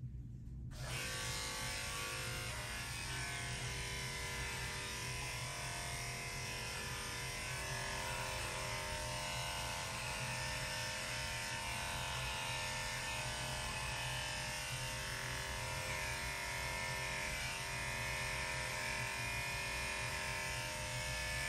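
Electric dog grooming clippers switched on about a second in, then running with a steady buzz while trimming a Shih Tzu's coat.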